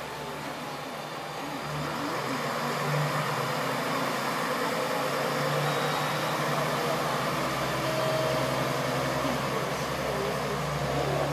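KiHa 47 two-car diesel railcar pulling out under power, its diesel engine hum steady, growing louder about two seconds in.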